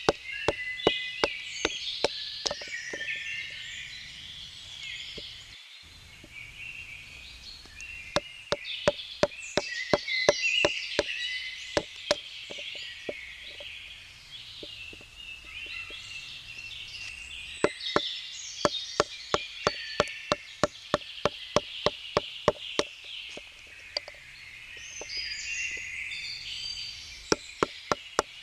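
Rapid, evenly spaced wooden knocks, a knife being batoned with a wooden baton to split firewood, coming in runs of several seconds with pauses between. Birds sing in the background.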